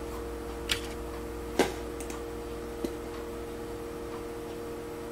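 A few sharp computer mouse clicks, the loudest about one and a half seconds in, over a steady low electrical hum.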